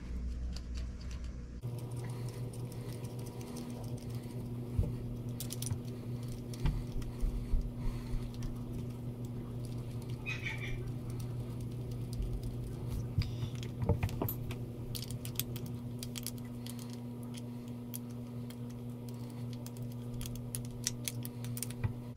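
Small metal and plastic carburetor parts being handled and fitted by hand: scattered light clicks, taps and rattles of the primer assembly seating on the float bowl and screws being worked in. A steady low hum comes in about two seconds in.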